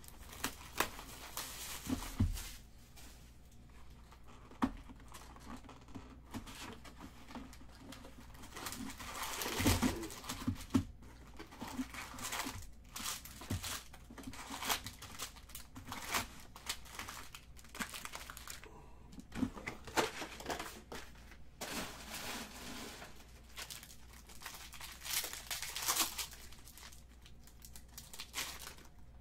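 A 2018 Bowman Draft hobby box and its foil card packs being opened: cardboard tearing and foil wrappers crinkling in irregular rustling bursts, loudest about ten seconds in and again near the end.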